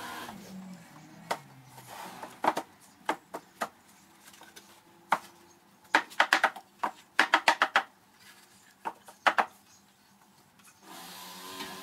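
Wooden moulding flask and lumps of rammed moulding sand being knocked apart in a sand-casting shakeout: sharp wooden knocks and clacks, some single and some in quick runs of several strikes, with crumbling sand in between.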